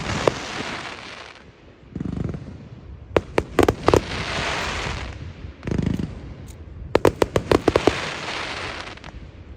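Fireworks display: aerial shells go off with deep booms about every four seconds, each followed by a rapid run of sharp cracks and a crackling hiss.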